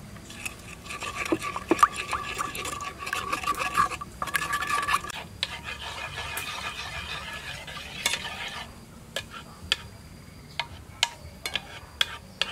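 Metal spoon stirring undissolved sugar into liquid in a stainless steel pot, scraping around the bottom, with short clinks of the spoon against the pot, more frequent in the second half.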